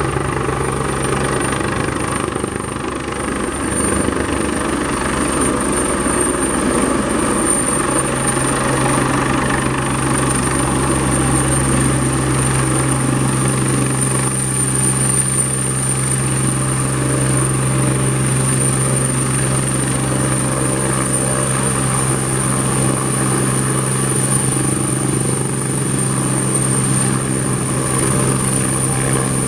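Airbus H175 twin-turboshaft helicopter running close by: a steady high turbine whine over the rotor's low, even drone.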